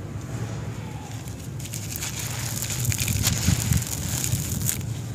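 Dry sand-cement lumps crumbled in the hands, giving a gritty crunching and crackling that starts about a second and a half in.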